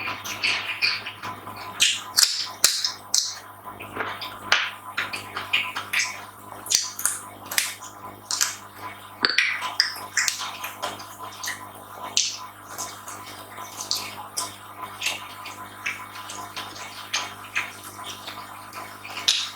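Wet chewing and lip smacking while eating a meal of rice and chicken: an irregular run of short sharp smacks and clicks, several a second, over a faint steady hum.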